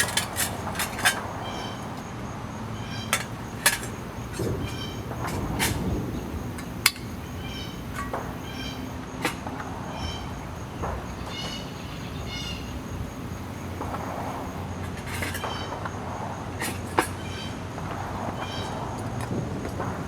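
Scattered sharp clinks and taps of a spoon against a metal cup, while a bird calls over and over, about once a second, in the background.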